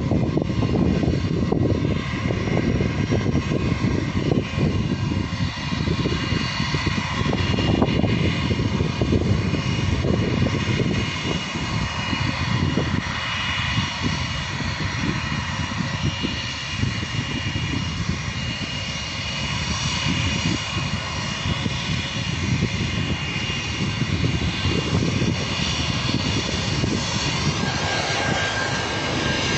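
Twin-engine jet airliner's engines running at high power on the runway: a steady loud roar with a high whine over it.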